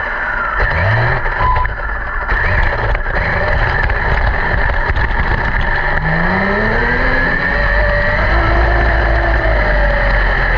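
A vehicle's motor running over a steady low rumble, its pitch rising as it speeds up about a second in and again for a couple of seconds past the middle.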